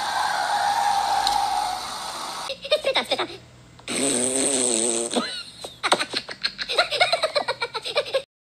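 Animated Minion characters vocalising: a drawn-out wavering sound, then a fast run of giggling laughter in the second half. A steady tone with hiss plays for the first two seconds.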